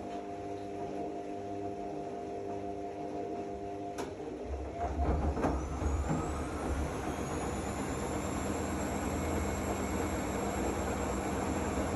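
Zanussi AquaCycle 500 FA 623 washing machine running: a steady hum, a sharp click about four seconds in, then the drum motor starts up with a low rumble and a rising whine that climbs for a few seconds and then holds steady.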